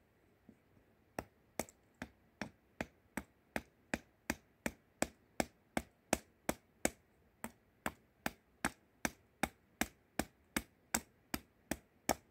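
Small hatchet chopping a wooden spoon blank braced on a wooden block: a steady run of crisp, short chops, about two and a half a second, starting about a second in, with a brief pause midway.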